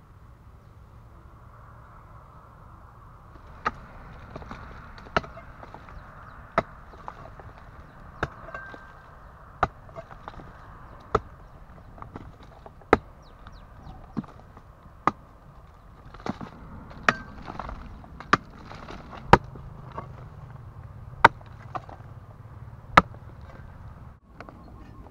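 A hoe chopping into the hard clay of a termite mound: a run of sharp blows, about one every second and a half, starting a few seconds in.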